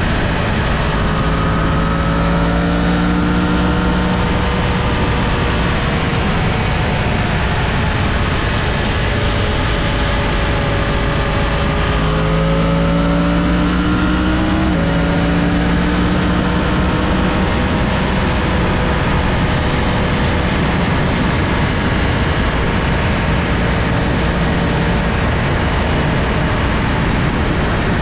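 Yamaha FZ-10 inline-four motorcycle engine running under way amid heavy wind rush. Its pitch climbs slowly, then drops sharply on a gear change about halfway through.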